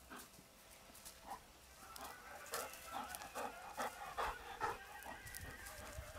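A dog breathing in quick short puffs, about two or three a second, while it sniffs along the ground, starting about two seconds in and easing off near the end.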